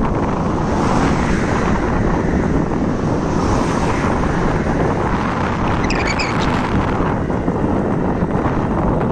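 Wind buffeting the microphone: a loud, steady rumbling rush. A brief high chirping about six seconds in.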